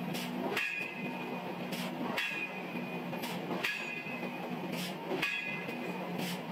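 Forging machine striking hot steel repeatedly: heavy metallic clanks with a short ring, about one every second or so, over a steady low machine hum.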